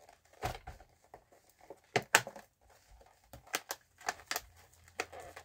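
Clear plastic packaging crinkling and crackling as it is handled and opened, with a few sharp ticks and taps now and then.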